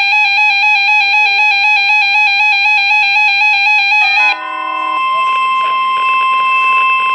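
Weather alert radio sounding its electronic warbling alarm, a tone flipping rapidly between two pitches. About four seconds in it gives way to a quick run of falling beeps and then the steady single-pitch NOAA Weather Radio alert tone that comes before a warning.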